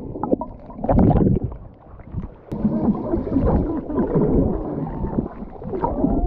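Muffled underwater sound from a submerged action camera: swimmers kicking and stroking nearby, with bubbles churning around them. A rush of noise comes about a second in, then a stretch of short wavering tones.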